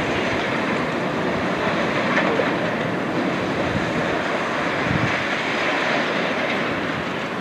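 A train running past on the track, a steady noise of wheels on rail that holds at one level.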